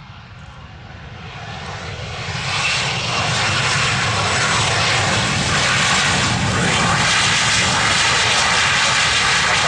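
Airplane engines growing louder over about two and a half seconds, then a loud, steady engine noise as the aircraft passes close by.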